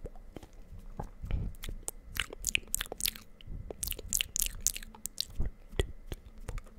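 Close-up ASMR mouth sounds right at the microphone: a quick, irregular run of wet clicks and smacks, thickest in the middle.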